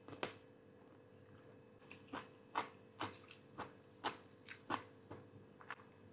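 A person chewing a mouthful of stir-fried noodles, with short wet mouth smacks about two a second, over a faint steady hum.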